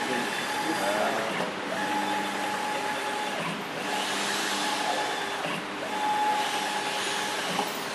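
HAR-T1802T 1.8 m sublimation textile printer printing, its printhead carriage sweeping back and forth across the fabric with a steady whir and a motor whine that comes and goes, the sound dipping briefly about every two seconds.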